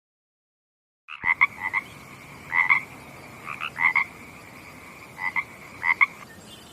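Repeated short pulsed animal calls in five clusters about a second and a half apart, over a steady high-pitched background tone, starting after a second of silence.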